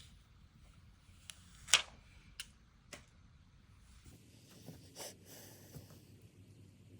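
A few sharp clicks and taps of a smartphone being handled on the bench, with the loudest about two seconds in.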